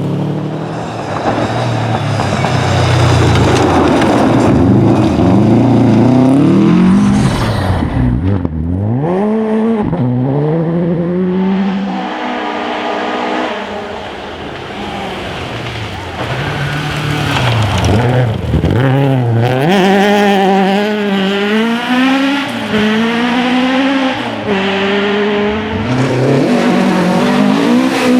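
Rally car engine revving hard on a special stage, its pitch climbing and dropping back again and again through gear changes and braking. Heavy tyre and road noise dominates the first several seconds.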